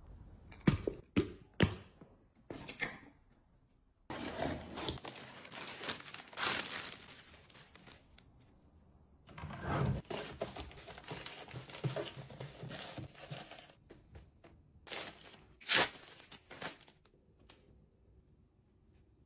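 Plastic packaging crinkling and rustling in long stretches as packs of sanitary pads are handled and stacked into a drawer, with a few sharp clicks near the start.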